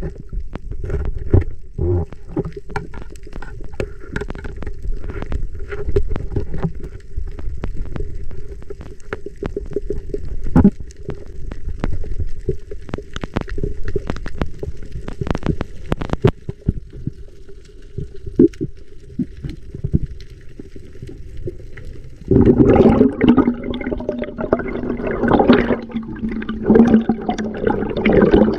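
Underwater sound heard through a camera housing: a steady low hum scattered with sharp clicks and knocks as a spear shaft and gloved hands work among reef coral. About two-thirds of the way through, a much louder gurgling, bubbling wash with a steady low drone takes over.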